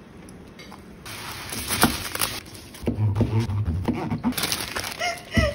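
Indistinct voices from about three seconds in, with a sharp knock about two seconds in.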